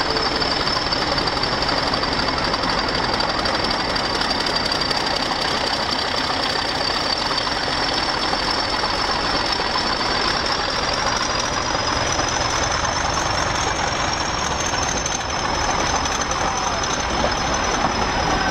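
A train's engine idling steadily, with a high whine above the running noise that rises a little about halfway through and eases back near the end.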